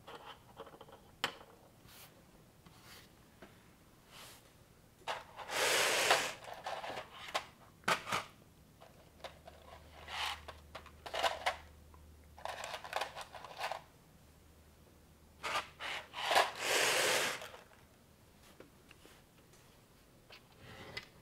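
Plastic building bricks and Technic parts handled during assembly: scattered sharp clicks and taps of pieces, with longer rustling, scraping bursts about five seconds in and again around sixteen seconds.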